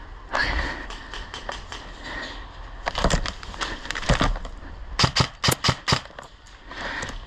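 An airsoft player's footsteps and gear rustling on dry grass, with a few sharp clicks, then a quick run of five or six sharp clacks about five seconds in.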